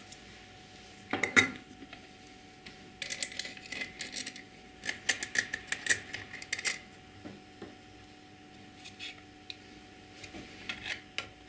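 Small metal parts clinking and tapping by hand: screws, a hex key and a terminal box being fitted onto a steel electric motor housing. The clinks come in several short clusters, the busiest in the middle, with lighter ticks of the key turning screws near the end.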